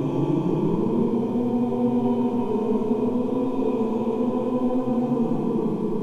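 Howl of the Alatay, a fictional tall humanoid creature: one long, low, steady howl made of several held tones.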